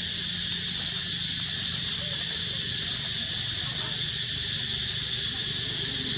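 Steady high-pitched insect chorus droning without a break, with a low steady hum underneath.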